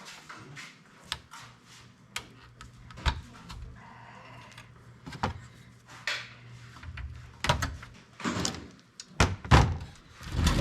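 Scattered knocks and thunks of tools and hard objects being handled and set down on a workbench, heavier near the end, with a low steady hum through the middle.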